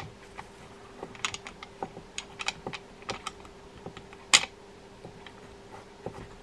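Irregular light clicks and taps from the opened Penn Fierce 7000 spinning reel as its main gear and crosswind block are worked by hand, with one sharper click about four and a half seconds in.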